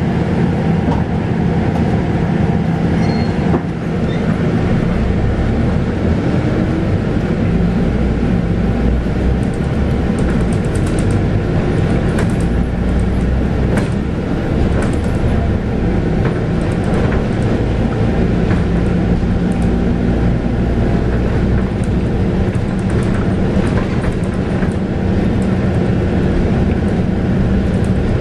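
Scania K280UB bus heard from inside while underway: its 9.3-litre five-cylinder DC9 diesel runs steadily through the ZF Ecomat six-speed automatic, the engine note shifting in pitch as speed changes. Light rattles from the body come through now and then.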